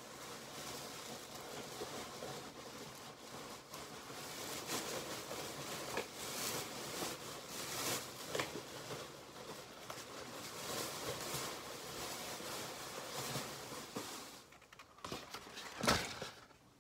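Rustling and crinkling of a shopping bag and packaging as items are dug out of it, in irregular bursts, with one sharp knock near the end.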